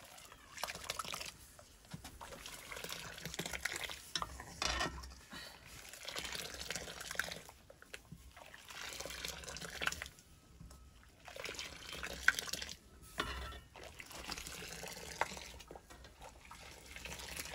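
Milk being poured and ladled into a metal pot, splashing in repeated pours with short pauses between them.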